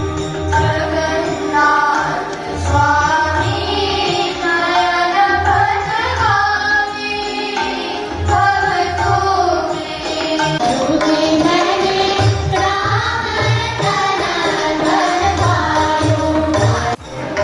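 Devotional bhajan singing with a steady drum accompaniment, cutting out briefly near the end.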